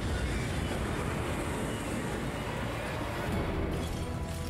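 Dramatised sound effect of an airliner exploding in a mid-air collision: a dense, continuous low rumble. Near the end, sustained music tones come in under the title.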